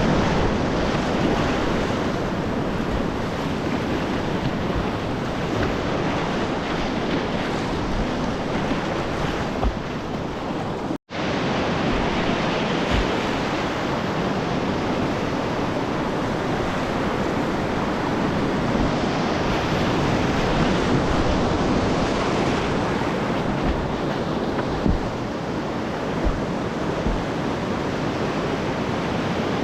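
Whitewater river rapids rushing steadily around a kayak, with wind buffeting the action camera's microphone. A few faint low thumps, and the sound cuts out completely for a split second about eleven seconds in.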